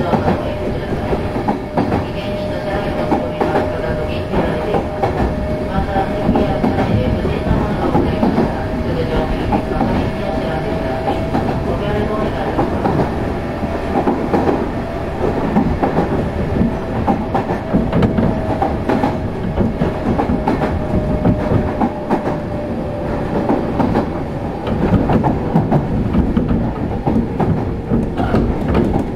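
Running sound heard aboard a Kintetsu 6600 series field-chopper electric train in motion: a steady rumble of wheels on rail, clicks over the rail joints, and a thin steady whine that sinks a little in pitch and fades in the second half.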